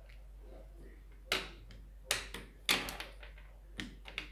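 Several sharp clicks and light knocks, the three loudest about half a second apart in the middle and two smaller ones near the end.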